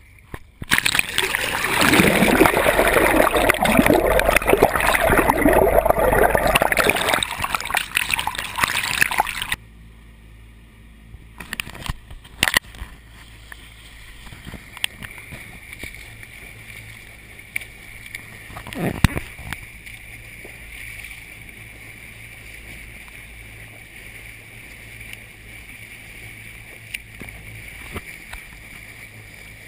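Water splashing and rushing loudly over a hull-mounted action camera's waterproof housing at the waterline of a Jeanneau Skanes 510 motorboat. The noise stops suddenly about nine seconds in, and a quieter, muffled steady wash and hum of the boat under way follows, with a few sharp knocks.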